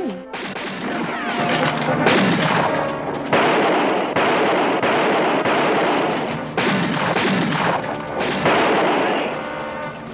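Several gunshots in a western shootout, each sharp crack followed by a long echoing tail, over background music.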